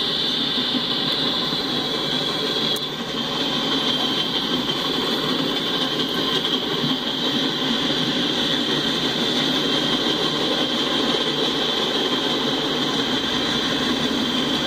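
Freight cars of a passing train rolling by on steel rails: a steady rumble of wheels on the track with a constant high hiss above it.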